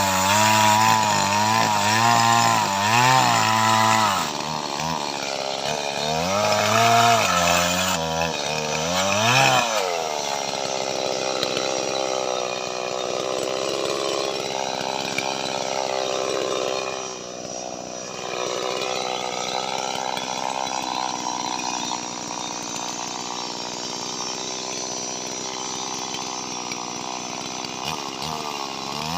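Small Stihl MS two-stroke chainsaw cutting lamtoro wood. For about the first ten seconds its engine speed rises and sags under load, then it runs more steadily and a little quieter to the end.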